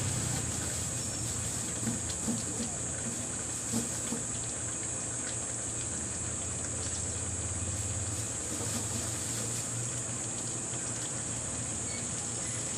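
Coconut milk simmering around fish in a steel pan on a gas stove, a steady hiss with a low hum beneath; a few soft taps and plops about two to four seconds in as long green chili peppers are dropped in.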